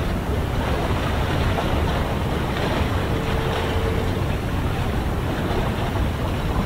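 Steady wind buffeting the microphone over the rush of the sea, heaviest in the low end. A faint steady tone comes in about three seconds in and lasts about a second.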